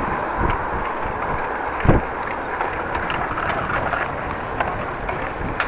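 Wind rushing over an action camera's microphone while cycling, over the rumble of the bike rolling on the road. A single knock about two seconds in, and a sharp click near the end.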